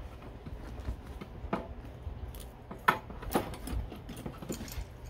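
Steel crampon and its metal strap buckles clinking and rattling as the strapped-on crampon is handled and the boot is lifted off the wooden table: irregular sharp metallic clinks, two of the loudest around the middle.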